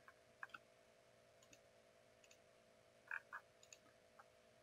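Near silence with a few faint computer mouse clicks selecting curves: a quick pair about half a second in, a slightly louder pair about three seconds in, and single clicks near the end, over a faint steady hum.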